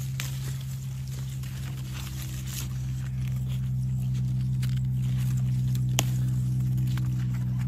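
A steady low hum runs throughout. Over it come a few sharp snaps and soft leaf rustling as okra pods are snapped off the plants by hand.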